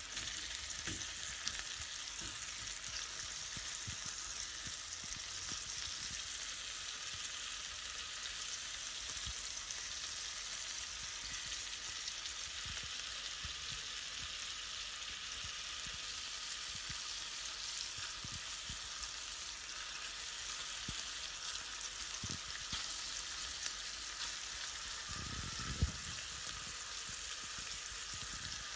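Chicken breast pieces sizzling steadily in olive and vegetable oil in a stainless steel pan, with a few soft knocks, one louder near the end.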